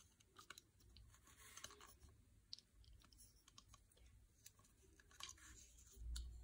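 Faint, scattered small clicks and taps of hard plastic as a clear plastic display-stand clip is fitted to a Star Trek starship model on its black base, with a soft low handling bump near the end.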